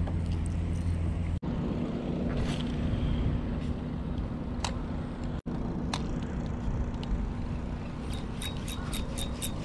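Steady low hum of a small boat's outboard motor running, dropping out suddenly twice. Near the end comes a quick run of about seven sharp clicks from the spinning reel.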